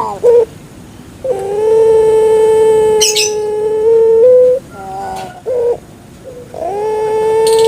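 Puter pelung (Barbary dove) cooing: a short note, then a long, steady, drawn-out coo of about three seconds, with another long coo beginning near the end. A brief high chirp sounds in the middle of the first long coo.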